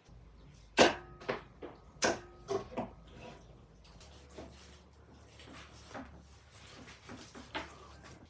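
Several sharp knocks with a brief metallic ring, the two loudest about a second apart, then quieter slicing, scraping and clicking as a knife cuts lamb meat away from the bone on a wooden board.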